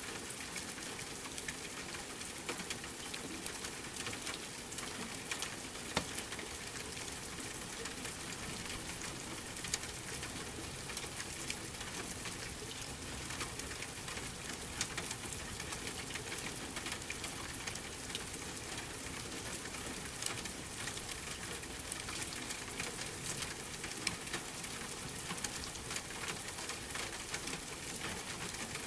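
Steady rain, with a wood fire crackling in scattered sharp pops.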